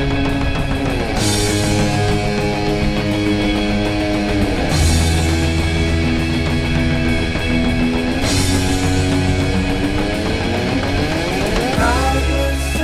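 Background rock music: sustained electric-guitar chords that change about every three and a half seconds, sliding in pitch into each new chord.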